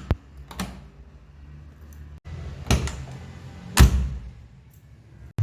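Four sharp clunks and clicks from the body mechanisms of a 1982 Volkswagen Voyage LS, such as a car door being worked, over a low steady hum. The loudest clunk comes about two thirds of the way through.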